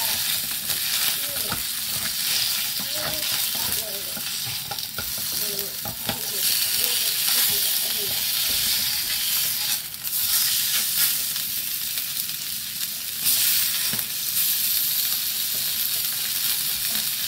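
Beef sirloin sizzling as it fries in a small metal camping pot: a steady hiss that swells louder several times. Over it come scrapes and light clicks as a plastic spatula and then tongs press and turn the meat.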